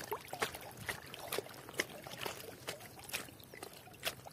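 Small irregular water splashes and dripping trickles, a few a second, around a fishing net being handled in the water.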